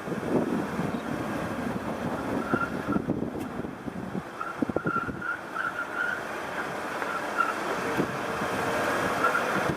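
Tires squealing in short, repeated high chirps over the vehicle's running noise during a slow, low-speed turn with the wheels only about halfway over. The owner takes it as a sign of faulty alignment and steering linkage, the wheels fighting against each other.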